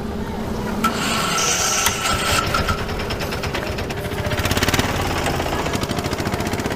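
Mechanical rubbing and rattling from hand work on a TVS Raider 125's rear wheel and chain area, over a steady hum; a fast, even rattle sets in about two seconds in.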